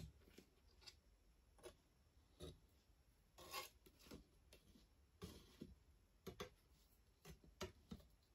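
Faint, irregular scrapes and ticks of a metal palette knife spreading thick acrylic paint across a stretched canvas.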